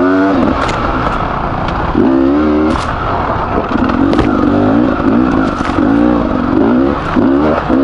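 Beta 300RR two-stroke enduro engine, freshly rebuilt with a new piston and bearings, ridden hard on a trail: it revs up and drops back again and again, with several sharp knocks and clatter from the bike on rough ground.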